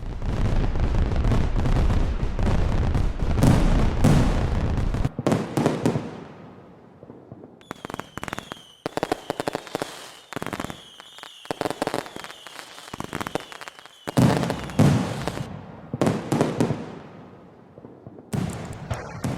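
Fireworks going off: a dense barrage of booms for the first five seconds, then crackling pops with high whistles falling in pitch, then more loud booms toward the end.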